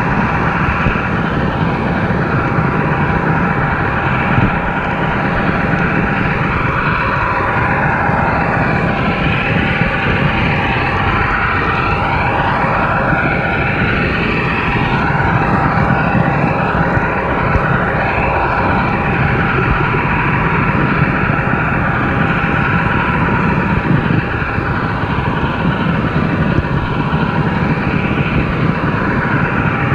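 Steady running noise of a model subway train heard from a camera riding on it: motor hum and wheels on the rails, continuing without a break.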